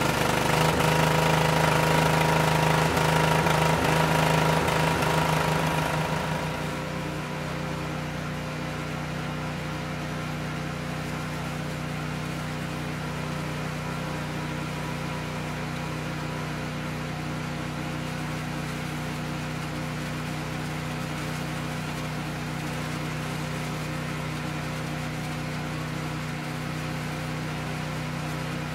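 Kohler K341 single-cylinder cast-iron engine on an Allis Chalmers 416 garden tractor, running steadily at speed to drive the composter attachment. About six seconds in, the sound drops a little and turns duller, then stays steady.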